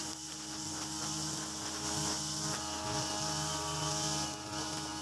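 Mitsubishi TU43 two-stroke brush cutter running steadily at working speed as its nylon-line head cuts grass, with a brief dip near the end.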